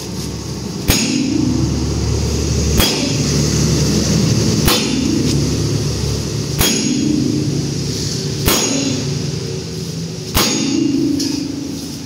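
Hammer blows on a heavy vehicle wheel during a wheel and tyre repair: six sharp metallic strikes at an even pace, about one every two seconds, each ringing briefly, over a steady low hum.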